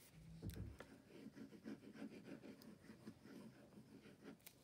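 Faint scratching of a liquid glue bottle's tip drawn in squiggles across white card stock, with a soft thump about half a second in.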